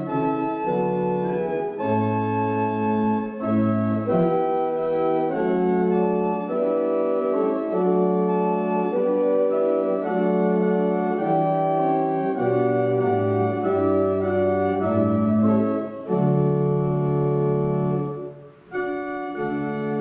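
Organ playing a hymn in slow, held chords, with a short break near the end before the next phrase.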